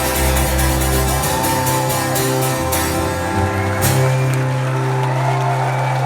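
Live rock band playing the instrumental outro of the song: electric guitars and bass holding sustained chords, the bass note changing about a second in and again near four seconds in with a cymbal crash.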